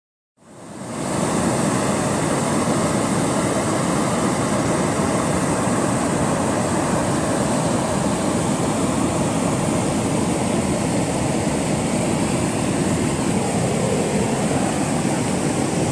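A steady rushing outdoor noise with no distinct events, fading in over the first second.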